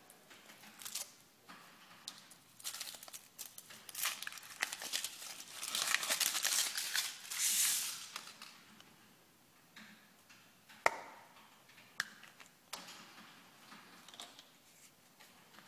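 Foil wrapper of a Kinder Surprise chocolate egg being peeled off and crinkled, a dense rustling crackle. Once the rustling dies down, two sharp cracks as the thin chocolate shell is broken open.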